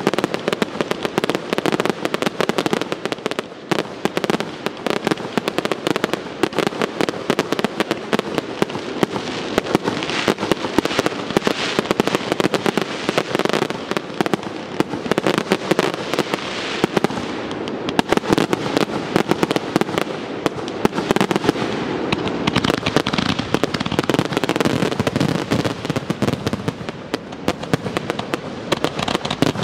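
Aerial fireworks firing in a rapid, unbroken barrage, with many bangs following close on one another.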